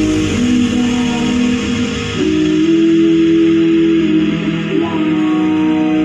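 Music played loud through a sound system: a slow melody of held notes led by an electric guitar or similar plucked-string sound, with a steady bass underneath.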